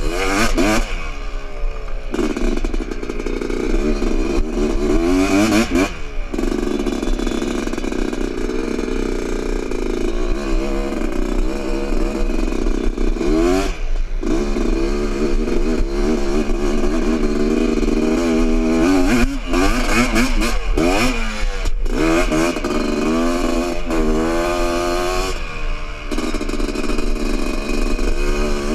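A 1985 Honda ATC250R three-wheeler's two-stroke single-cylinder engine running hard under the rider on sand, its pitch climbing and falling with the throttle, with sharp drops and recoveries about 6, 14 and 22 seconds in.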